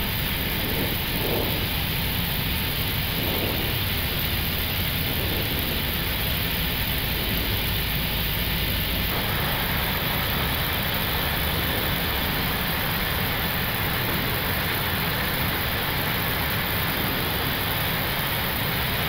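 Airbus A321neo flight deck in the climb: a steady rushing noise of airflow and engines at climb thrust. The noise shifts slightly about nine seconds in.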